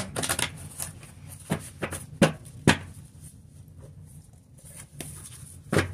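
A stack of paper index cards handled on a wooden tabletop: soft paper rustling with about half a dozen sharp taps and knocks, the two loudest a little past two seconds in.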